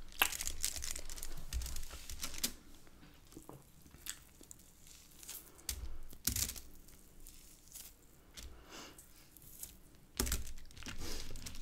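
Hands tearing soft flatbread and pulling grilled chicken apart in a foil takeaway tray: soft tearing with crinkling of the foil, in scattered bursts in the first couple of seconds, around the middle and again near the end.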